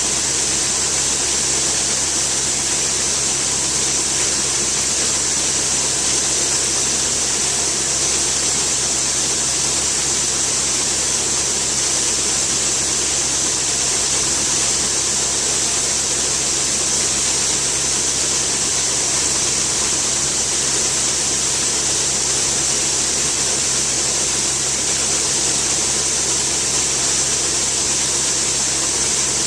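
Harvest machinery engine running steadily, a constant drone with a strong hiss over it and no change in speed.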